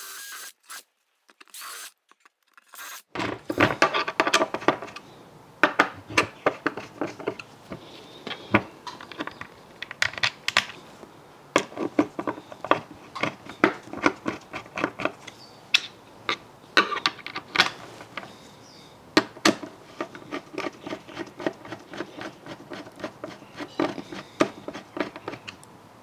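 A cordless drill runs in a few short bursts, then a hand screwdriver turns screws into freshly drilled holes in a router-table mounting plate, making an irregular run of clicks and knocks.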